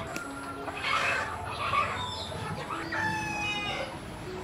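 Chickens: clucking calls about a second in, then a rooster's crow about three seconds in.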